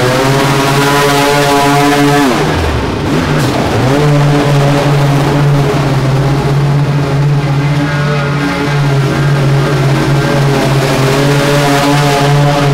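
Small gasoline engine of lawn equipment running steadily. About two seconds in, its pitch drops sharply and climbs back up within a second or two, as the engine slows and recovers.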